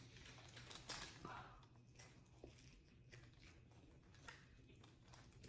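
Faint chewing of a sub sandwich, with a few soft mouth clicks scattered through near silence.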